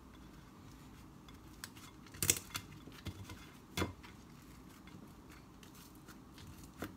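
Quiet handling of warm sopes: fingers pinching up the rims through a cloth napkin on a plate, with a few small clicks and knocks against the plate. The sharpest comes about two seconds in, another near four seconds.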